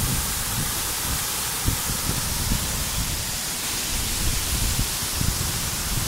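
Gega waterfall's steady rush of falling water, a hiss-like roar that holds level throughout, with irregular low rumbles underneath.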